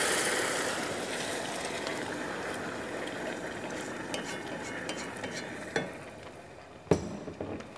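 Hot pot of toasted bulgur and vermicelli sizzling as meat broth is added, the hiss dying down steadily. Two sharp knocks of a utensil near the end.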